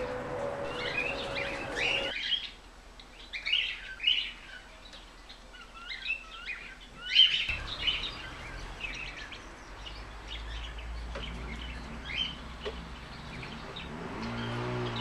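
Small birds chirping and singing, a steady scatter of short high calls and trills, with one louder call about seven seconds in.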